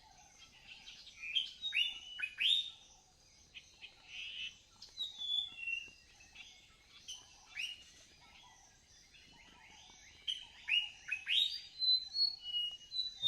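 Birds chirping: many short, separate chirps and calls, some sweeping up in pitch, coming in clusters with brief quiet gaps between.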